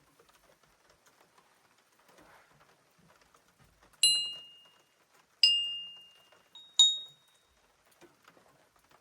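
A small memorial bell struck three times, about a second and a half apart, each a high ringing tone that dies away over about a second; rung in memory of the fallen.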